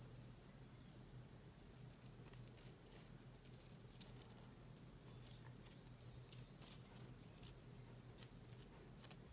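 Near silence: faint rustling and soft scattered ticks of grosgrain ribbon being handled and pinched by fingers, over a steady low hum.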